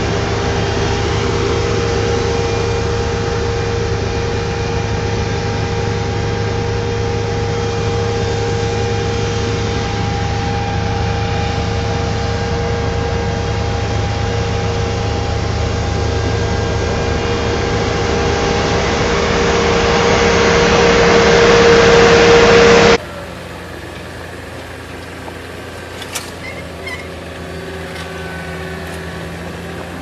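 Asphalt paver's diesel engine running steadily with a constant whine, swelling louder before cutting off abruptly about three-quarters of the way through. A much quieter engine hum follows, from a paving-stone laying machine, with one sharp click.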